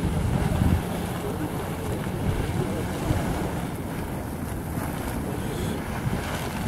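Geyser venting steam with a steady, low rushing noise, mixed with wind buffeting the microphone; loudest in the first second.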